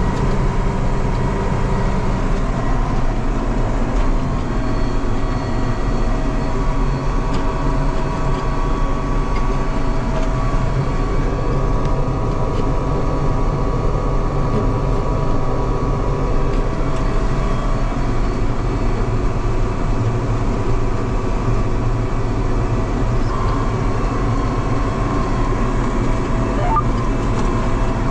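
Farm tractor running steadily across a rough field while pulling a fertilizer spreader: a constant engine drone with a steady whine over it.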